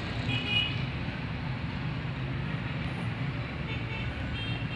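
Steady low hum with even background hiss, and faint short high-pitched tones twice: about half a second in and near the end.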